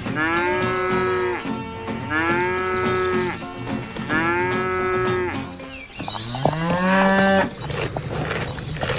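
Cow mooing: three long, level calls about a second and a half each, then a fourth call that rises in pitch.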